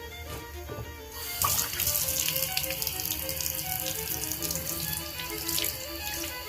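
Bathtub faucet turned on about a second in, water running steadily into the tub to test the freshly unclogged drain, over background music.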